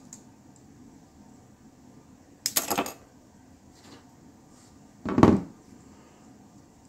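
Two brief clatters of small hard parts being handled, about two and a half and five seconds in, the second louder.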